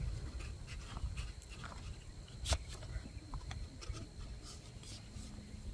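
Plastic clicks and handling noise as a pole is pushed and twisted into a solar animal repeller's housing, with one sharp click about two and a half seconds in, over a low rumble.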